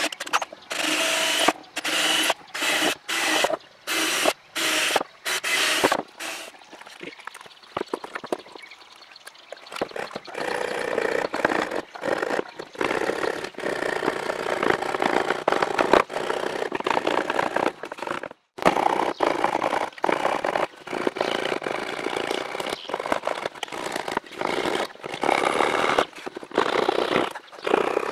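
A cordless drill runs in short bursts, boring a starter hole through beech. Then a coping saw rasps back and forth, cutting out an eye opening.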